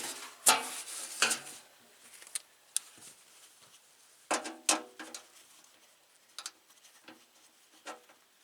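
Irregular sharp metallic knocks and clanks, about eight in all, from work on a steel truck fender, the loudest two coming in the first second or so.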